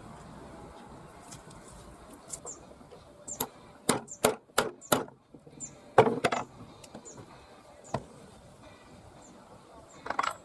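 Sharp knocks of a hammer-type striking tool: five in quick succession, a louder pair a second later, then two single knocks spaced out towards the end.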